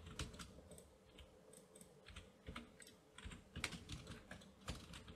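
Faint, scattered clicks of computer keyboard keys and a mouse, a few at a time, some in quick clusters.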